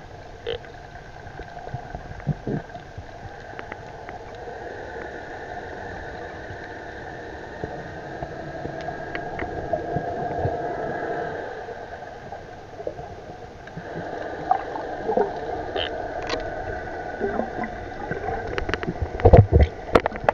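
Muffled underwater sound picked up by a submerged camera: a steady, wavering drone with scattered sharp clicks, and a cluster of louder knocks and sloshing near the end.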